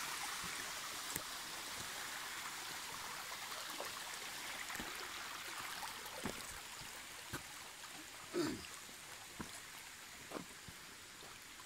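Shallow creek water running over rocks, a steady rush that slowly grows fainter. Scattered short knocks and small splashes sound over it, the loudest about eight seconds in.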